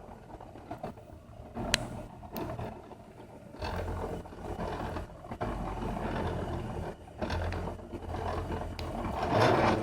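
New Matter MOD-t 3D printer's stepper motors whirring as it prints, the hum changing pitch in steps as the head and bed switch direction, with a few sharp clicks.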